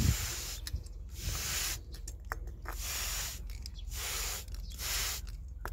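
Hand-pump plant mister spraying water in a series of short hissing puffs, about one a second, with a low knock at the very start.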